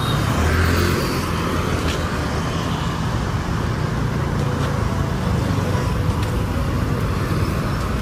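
Steady road traffic: vehicle engines and tyres running past, a little louder about half a second in.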